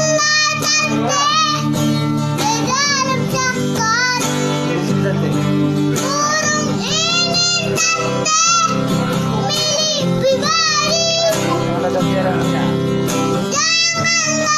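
Music: a child's voice singing a melody with an acoustic guitar accompaniment.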